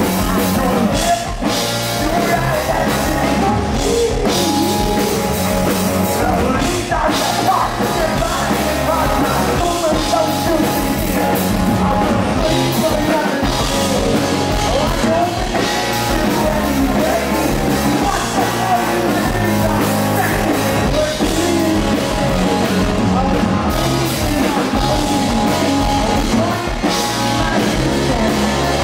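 Live rock band playing, with electric guitars, bass and drum kit, and a sung vocal over the top, loud and steady.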